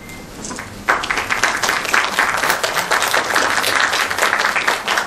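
Audience applauding, breaking out suddenly about a second in.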